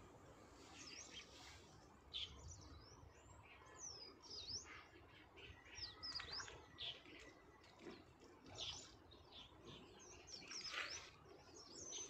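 Small birds chirping faintly: many short, quick calls that dip and rise in pitch, one after another.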